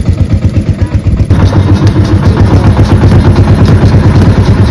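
Small tipper truck's engine running under load with a rapid, even chugging, getting louder about a second in.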